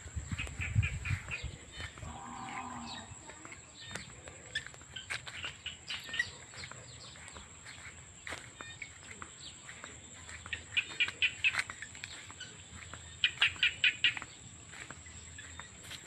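Rural field ambience: birds chirping in quick rapid series, loudest around the middle and again near the end, over a steady high insect whine. A cow moos briefly about two seconds in.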